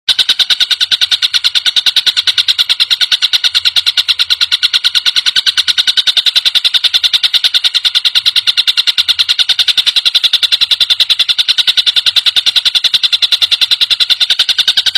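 Tengkek buto kingfisher giving a long, fast, even chattering trill of rapid high-pitched notes that does not let up.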